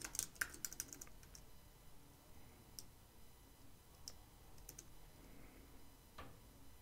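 Faint typing on a computer keyboard: a quick run of keystrokes in the first second or so, then a few scattered single key clicks.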